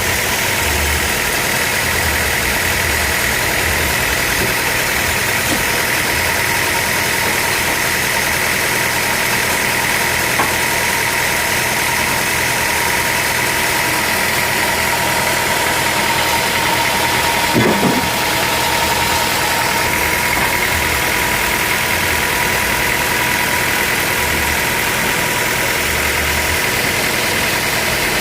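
Sawmill machinery running steadily: a constant mechanical drone with a high whine held at two steady pitches. A single brief knock comes about two-thirds of the way through.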